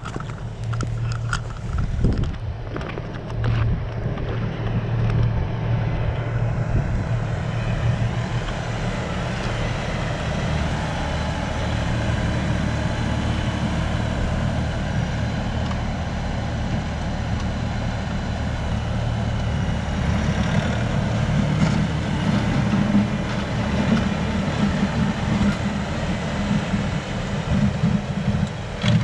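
LS compact tractor's diesel engine running steadily under work as the loader bucket moves snow, its low hum swelling somewhat about two-thirds of the way through. A few sharp clicks in the first couple of seconds.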